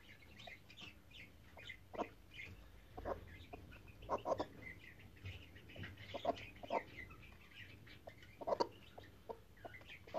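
Broody hen sitting on her eggs, giving faint, short clucks scattered through the few seconds.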